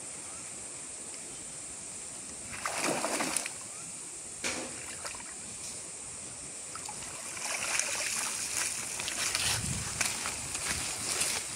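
Water splashing and sloshing as a cast net is gathered and lifted out of shallow river water, over a steady background hiss: one larger splash about three seconds in and a shorter one a little later. In the second half come crackling rustles of feet on dry leaf litter as the net is carried up the bank.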